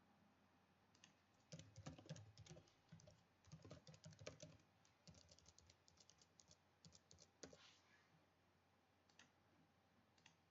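Faint typing on a computer keyboard: a quick run of key clicks from about a second and a half in until near the middle, then a few scattered clicks.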